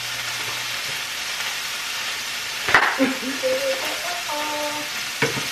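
Hamburger patties sizzling steadily in a frying pan, with one sharp knock about halfway through.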